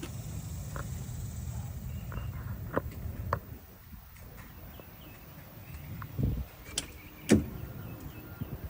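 A few sharp clicks, then a cluster of knocks, the loudest a little past seven seconds in, over a low rumble that fades after the first few seconds.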